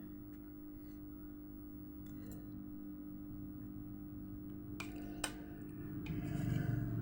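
A steady low hum with two sharp light clicks about five seconds in, followed by a fuller, lower rustle near the end.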